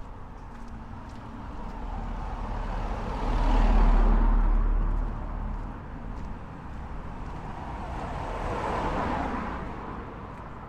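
Two cars passing on the street one after the other: the first, the louder, swells up and goes by with a low rumble about four seconds in, and the second passes more softly near nine seconds.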